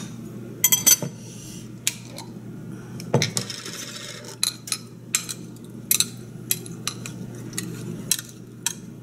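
Metal spoon clinking and scraping against the inside of a glass jar of chili oil while scooping: a string of sharp clicks, with a short stretch of scraping a few seconds in.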